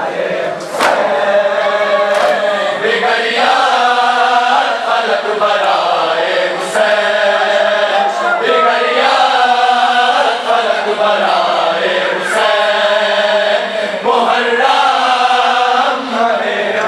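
A large crowd of men chanting a nauha, a Muharram lament, together in repeated phrases a few seconds long with brief pauses between them. A few sharp slaps cut through.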